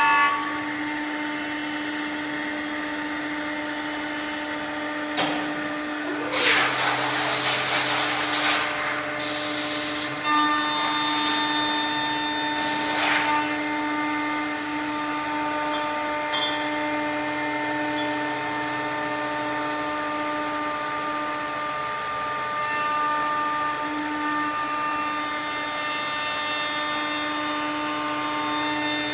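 Balestrieri woodworking CNC machining centre running, its spindle whining steadily. Between about six and thirteen seconds in come four loud rasping bursts as the tool cuts into the wood.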